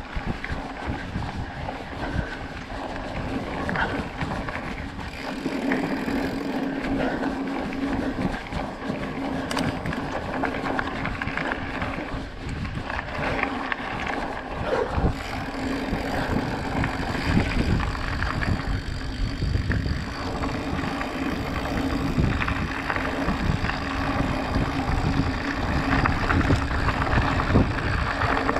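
2020 Trek Procaliber 9.6 hardtail mountain bike rolling over a gravel and dirt track on knobby 29-inch Maxxis tyres: steady tyre noise with a low hum and many small rattles and knocks from the bike over the loose surface.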